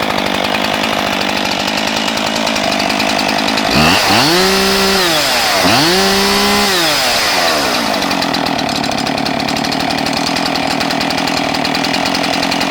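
Husqvarna 576 XP two-stroke chainsaw running at idle, revved up to high speed twice, about four and six seconds in: each time the pitch rises quickly, holds briefly and drops back to idle. It runs strong and clean.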